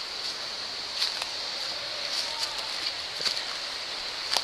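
Footsteps crunching and rustling through dry leaves and twigs on a forest floor, a few scattered crackles over a steady high hiss.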